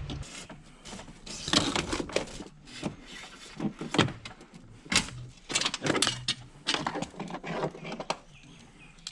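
A broken car hood latch being handled, with irregular sharp clicks, knocks and rattles of the metal latch parts.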